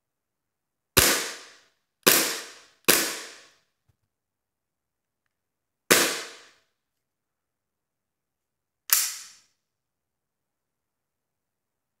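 WE Glock 17 Gen 4 gas blowback airsoft pistol dry-fired with no BBs: five sharp cracks of the gas-driven slide cycling, each dying away over about half a second. Three come in quick succession about a second in, then two more follow about three seconds apart.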